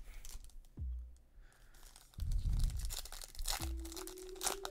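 A foil Yu-Gi-Oh booster pack being torn open and crinkled by hand, with the crackling starting about two seconds in.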